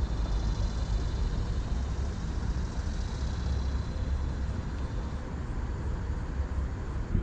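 Outdoor background noise: a steady low rumble, with a faint higher hiss that fades out about five seconds in.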